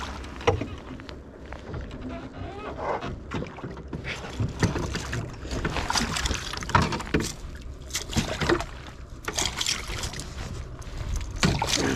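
Irregular splashes and knocks over a low steady rumble of wind on the microphone, as a hooked bass is fought at the surface and landed.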